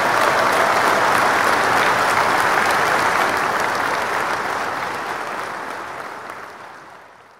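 Large crowd applauding, a dense steady clapping that fades out over the last few seconds.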